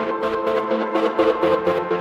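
Electronic music with a steady, fast beat over held synth chords.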